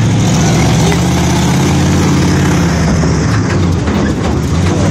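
Monster truck's engine running steadily at low speed, loud and close, with a deep even note.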